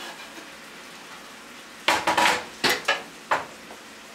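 Chicken and diced squash frying in a skillet with a faint, steady sizzle. About two seconds in comes a cluster of sharp knocks and scrapes as a slotted spatula stirs against the pan.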